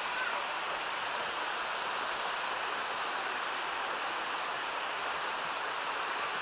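Steady rush of a mountain stream tumbling over a cascade of small waterfalls and rapids.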